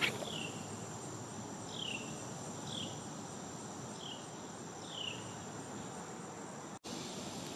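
Insects trilling in one steady high drone, while a bird gives five short falling whistled notes at irregular intervals. The sound drops out for an instant near the end.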